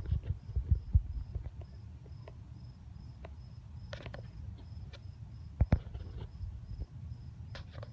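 A cricket chirping steadily, high-pitched, about three short chirps a second, over a low rumble. A few sharp knocks stand out near the start and a pair more about two-thirds of the way through.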